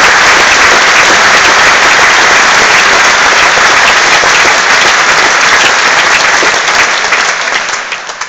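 Audience applauding, loud and dense clapping that thins out near the end.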